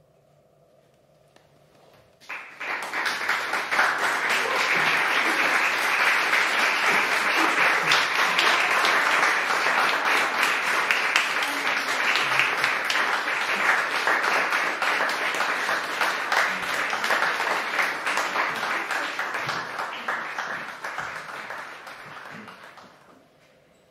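After about two seconds of near silence, an audience breaks into applause that holds steady and dies away near the end.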